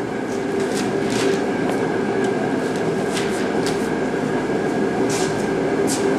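Steady mechanical running with a constant hum and a held higher tone, broken by several short hissing spurts.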